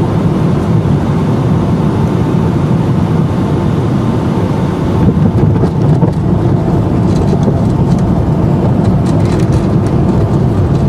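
Cabin noise inside a Boeing 757-200 during landing: a steady low rumble of engines and airflow. About five seconds in it briefly grows louder, and light rattling follows.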